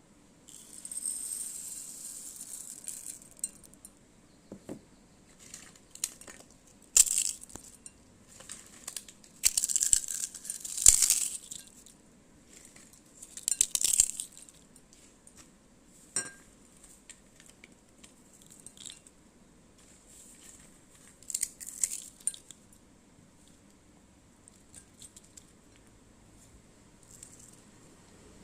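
Jhal muri being made: puffed rice and other ingredients rustling and crinkling as they are handled and mixed, in irregular bursts with quiet gaps between. There are occasional sharp clinks of utensils, the clearest about five and sixteen seconds in.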